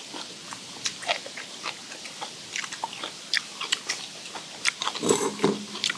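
Close-miked chewing and crunching of food, with irregular crisp bites and mouth sounds.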